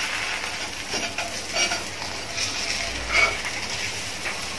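Porotta flatbreads frying in oil on a hot metal griddle, sizzling steadily, with a few short scrapes and taps of a flat metal spatula against the griddle as they are turned over.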